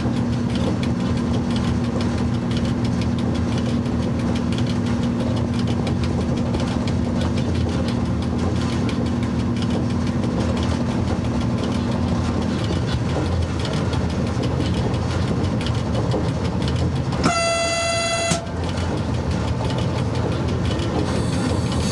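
Italian E.656 electric locomotive under way, heard from the cab: steady running noise of wheels on rail, with a steady hum that drops out about twelve seconds in. About seventeen seconds in, the horn sounds once for about a second.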